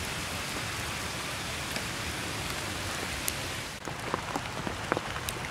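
Steady rain falling, an even hiss with scattered sharp ticks of drops striking close by, the ticks coming more often in the last second or so.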